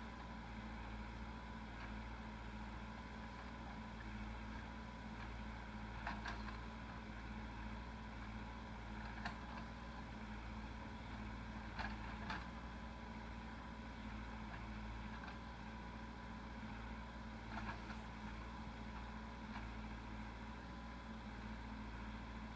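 Backhoe loader's diesel engine running steadily, with a handful of short, sharp clanks of metal at irregular intervals.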